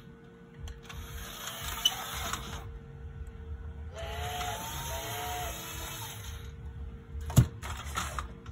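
Small electric motor and plastic gears of a 1996 Tyco Sesame Street radio-control toy train running in two bursts of about two seconds each as the remote's button is pressed, with a few sliding electronic tones over the second burst. A single sharp plastic knock comes about seven seconds in.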